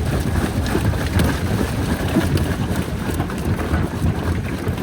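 Jaw crusher running with a steady low rumble, with faint scattered cracks and clatter of rock.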